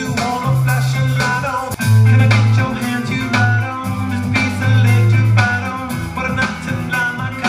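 A rock song with singing, guitar and bass played loud through a Sound Town CARPO L2 column PA speaker with a 12-inch subwoofer. About two seconds in the sound drops briefly and comes back louder, as the speaker's DSP preset switches from Speech to Music.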